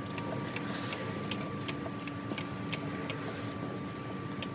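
Hand ratchet clicking in a slow, even rhythm, about three clicks a second, as an alternator mounting bolt is worked loose, over a steady faint hum.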